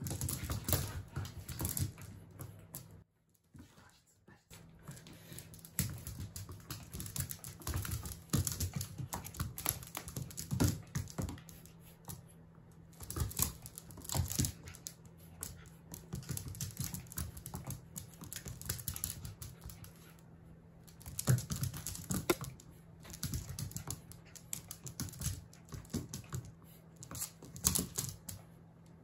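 Irregular clicking and scrabbling on a wooden floor: a Jack Russell terrier puppy's claws skittering as it chases and pounces on a cat teaser toy dragged across the boards. Quieter for about a second a few seconds in.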